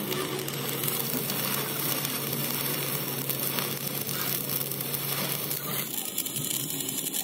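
Stick (arc) welding on the steel of an excavator bucket: the electrode's arc crackling and sizzling steadily as a bead is laid. A steady low hum runs underneath and drops out about six seconds in.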